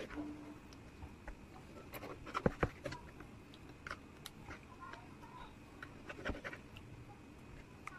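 Kitchen knife slicing through raw liver and knocking on a plastic cutting board: scattered clicks and scrapes, with the loudest cluster of knocks about two and a half seconds in and another about six seconds in.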